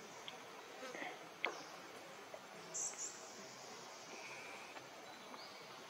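Faint outdoor ambience with a steady insect drone, a sharp click about one and a half seconds in, and a couple of short high chirps about three seconds in.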